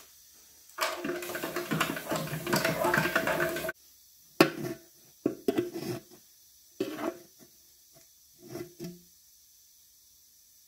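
Compressed air blowing into a Honda EZ2500 generator's rag-stuffed fuel tank, a loud hiss for about three seconds that cuts off suddenly. Then several short scrapes and rustles as the oily rags are pulled back out through the filler neck.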